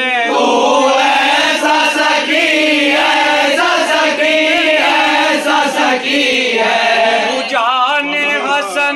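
A crowd of men singing a devotional chorus together, many voices blending into one dense sound. Near the end a single lead voice with a wavering pitch stands out again.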